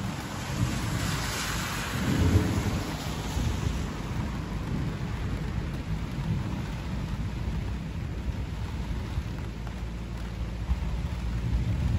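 Thunder rolling in a long low rumble with rain hissing, swelling louder about two seconds in.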